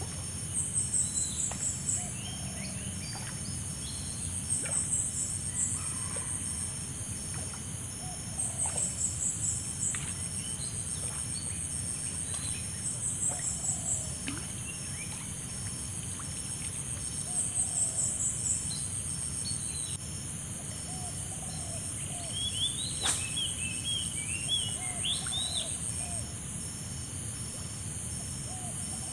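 Outdoor natural ambience: a steady high insect hum with a fast, high trill repeating about every four seconds, scattered short bird calls, and one sharp click about 23 seconds in.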